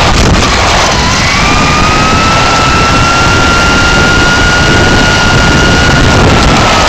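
RC car's electric motor and gear drive whining, heard from the car itself. The pitch dips about a second in, rises again and holds steady, then drops a little near the end, over a heavy rumble of tyres and chassis on the ground.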